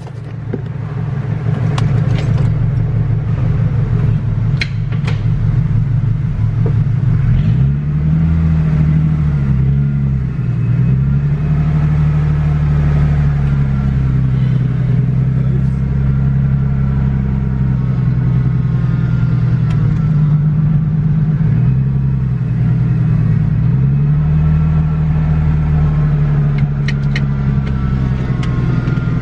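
Foxbody Mustang engine running after a T5 manual transmission swap, mostly steady, with several short rises and falls in pitch as the throttle is worked.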